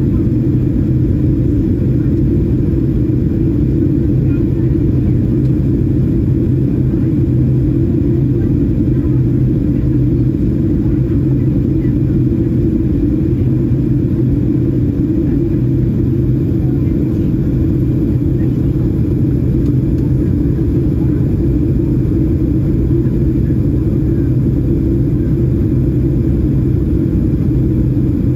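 Steady low rumble of a Boeing 737-800 airliner cabin, from its CFM56-7B engines and rushing air, with an even hum underneath and no change in pitch or level.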